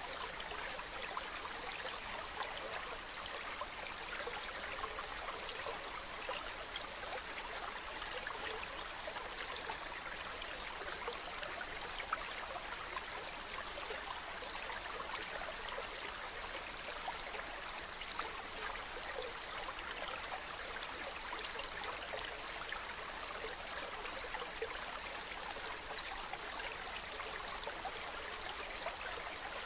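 Stream water running steadily over rocks, a continuous babbling and trickling with small splashes.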